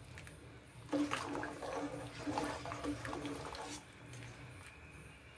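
Steel ladle stirring thick rice kheer in a steel pan: irregular scraping against the pan and wet sloshing of the thickened milk, strongest from about a second in and easing off in the second half.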